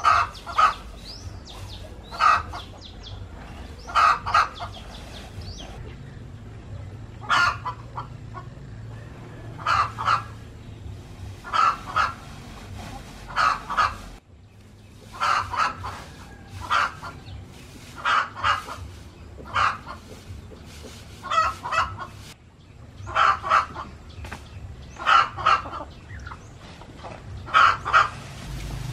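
Chickens clucking: short calls, often in pairs or threes, every second or two.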